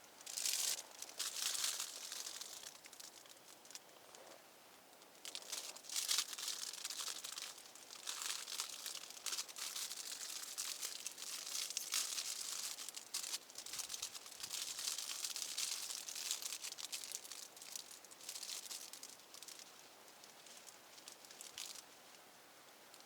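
Crinkling and rustling of fabric or plastic being handled, in irregular bursts.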